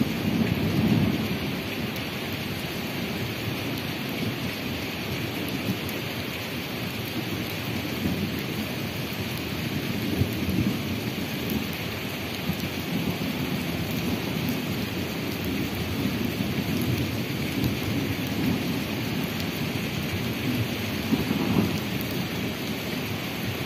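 Steady heavy rain falling on wet pavement and puddles, with low rumbles swelling up a few times, about a second in, around the middle and near the end.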